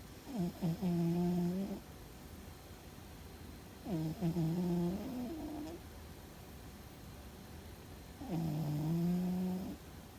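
Domestic cat snoring in its sleep: three loud, pitched snores about four seconds apart, one with each breath, each lasting about a second and a half.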